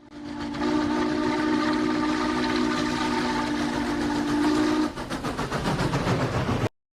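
Deep multi-tone steam train whistle sounding one long chord blast of about five seconds, followed by a quick rhythmic clatter before the sound cuts off abruptly.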